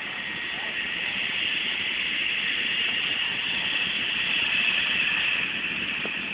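Jet airliner engines heard at an airport, a steady hissing rush that grows louder to a peak about five seconds in and then eases off.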